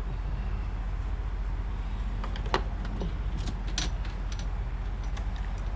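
A few light clicks and small metallic taps from screws being worked into a door hinge, over a steady low hum.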